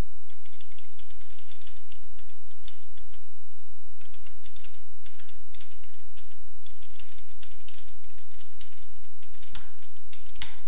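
Typing on a computer keyboard, irregular runs of keystrokes, with a couple of sharper clicks near the end, over a steady low hum.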